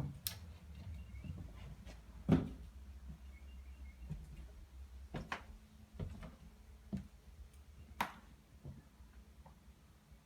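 Scattered knocks and taps in a small room over a low hum, about six in all, the loudest about two seconds in.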